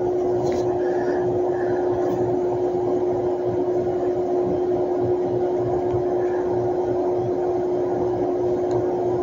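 A steady, unchanging mechanical drone: one constant pitched hum over a low rumble.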